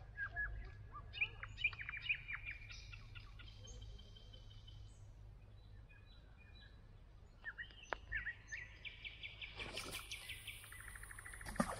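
Songbirds singing: short chirps and whistles, then a fast buzzy trill. Near the end a fishing rod is cast, with a rushing swish of rod and line and a sharp click.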